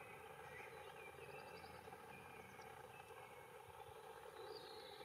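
Near silence: a faint steady hiss with a few faint, short bird chirps scattered through it.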